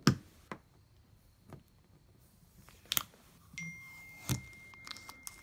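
Handling noise from the parts of a portable air conditioner: a handful of sharp, separate clicks and knocks. A little past halfway a steady high thin tone starts abruptly and holds.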